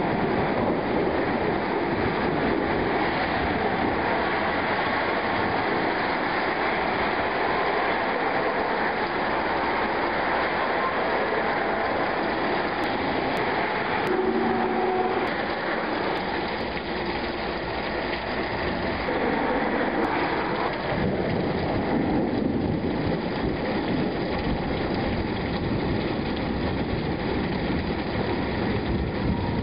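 Steady heavy rain falling in a thunderstorm, with a continuous low rumble of thunder underneath.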